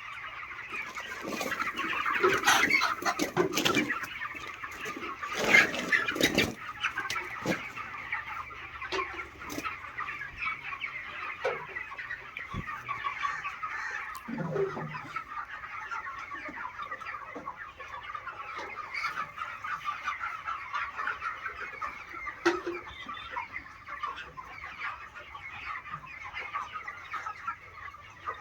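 A large flock of chickens calling all together in a continuous din of clucks and cheeps, louder and busier in the first few seconds.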